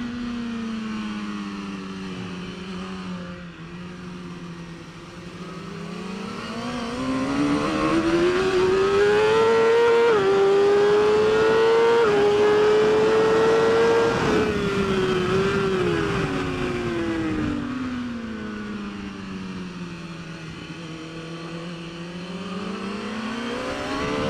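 Onboard sound of a BMW S1000RR superbike's inline-four engine at race pace. It runs low through a corner, then climbs hard through the gears with two quick upshifts and is held high at full throttle. It then drops through downshifts braking into the next corner, low again, before picking up near the end. Steady wind rush lies under it.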